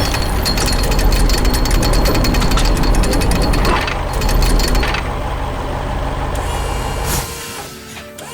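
Excavator's hydraulic rock breaker hammering rapidly over the heavy rumble of its engine. The hammering stops about five seconds in; the engine runs on and fades about seven seconds in.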